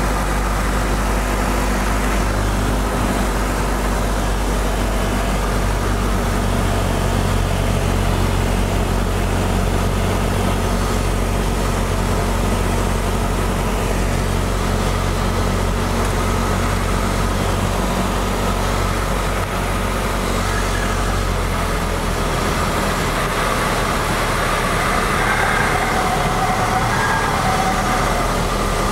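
Cessna 172 floatplane's engine and propeller droning steadily in flight. A little over 20 seconds in the low drone shifts as the descent to the water goes on.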